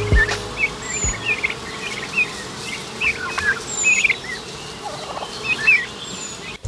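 A flock of domestic turkeys and young fowl calling: a stream of short, high peeping chirps, with a lower call about five seconds in. A thin falling whistle recurs three times above them.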